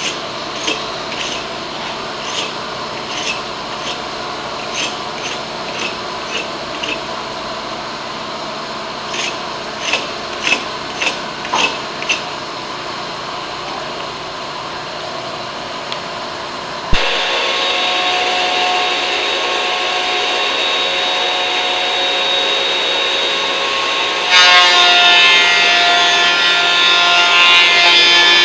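Hand pull scraper scraping dried glue off a glued-up hardwood cutting board, in a series of short strokes that come in two bunches. About 17 seconds in, a workshop machine switches on with a click and runs steadily. Near the end a louder motor whine joins it as the benchtop thickness planer starts up.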